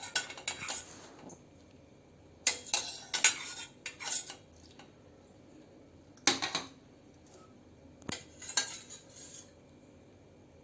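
Spoon clinking and scraping against the pressure cooker pot in several short bursts as boiled ginger pieces are lifted out.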